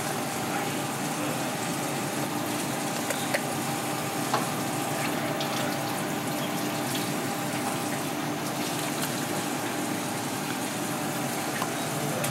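Steady kitchen background noise: an even hiss with a faint low hum, and a few light knocks as the fish carcass is handled on the cutting board.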